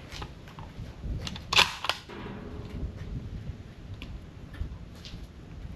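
Metallic clicks and clacks of a Tikka .308 bolt-action rifle being handled at the bench, the loudest pair about a second and a half in, with a few fainter clicks later.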